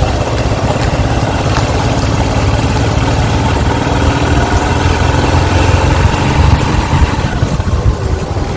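Motorbike riding along at steady speed: its engine running under a loud, steady rush of wind on the microphone.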